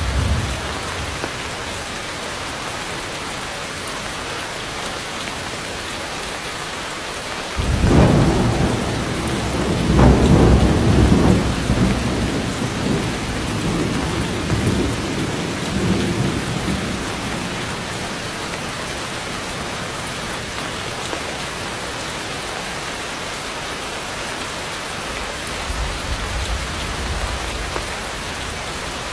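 Heavy rain pouring steadily through forest foliage. About a third of the way in a roll of thunder breaks in suddenly, swells twice and rumbles away over several seconds, and a fainter rumble comes near the end.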